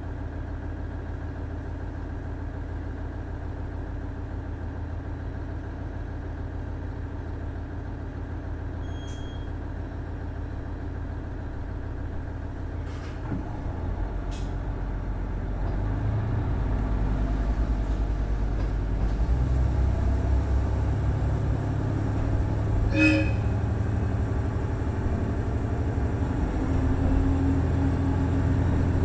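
Cummins DMF14HZA diesel engine of a KiHa 110 series railcar, heard aboard, running with a steady low rumble. About halfway through the engine note grows louder and comes under load. A few sharp clicks or knocks are heard along the way.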